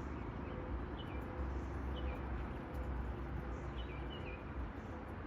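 Canada goose goslings peeping: short, high, down-slurred peeps about once a second, some in quick pairs or threes, over a steady low rumble.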